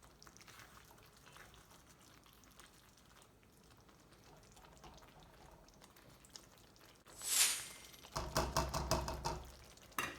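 A pan of curry simmering softly, then about seven seconds in a loud scrape followed by a quick run of stirring strokes in the pan, with a sharp click near the end.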